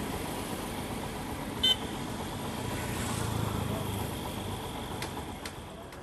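Steady rumble of a yellow rail-borne track maintenance machine's diesel engine as it moves slowly along the track, with one very short, high beep about two seconds in.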